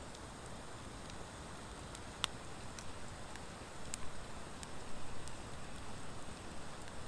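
Campfire of driftwood and dry hardwood logs burning with a steady low hiss and scattered sharp crackling pops. The loudest pop comes about two seconds in, and the pops come thicker around the middle.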